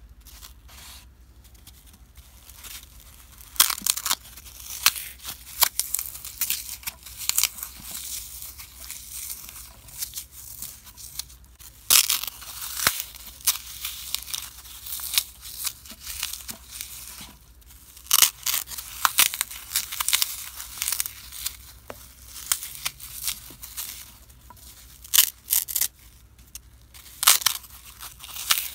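Dry, unsoaked floral foam crushed and crumbled by hand: irregular crisp crunches and crackles, some sharp and loud, starting about three seconds in.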